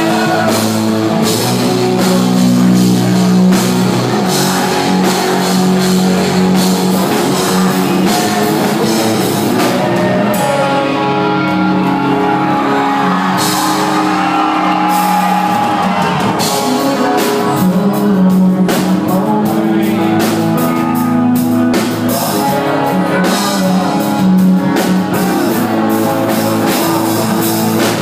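Live rock band playing loud: electric guitar, drum kit and a singer through the PA. The cymbals drop away for a few seconds about ten seconds in, then the full band comes back.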